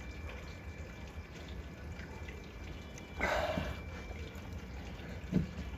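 A man drinking whisky and soda: a short breathy noise about three seconds in, then a single light knock near the end as the glass is set down on the table, over a steady low background hum.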